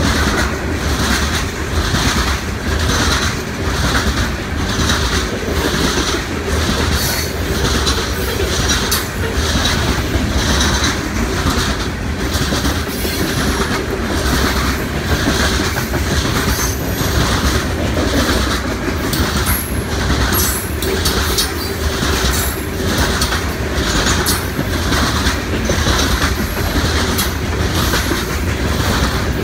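Loaded coal hopper cars of a freight train rolling past at close range, their steel wheels clacking in a steady, even rhythm, with a few brief thin high wheel squeals.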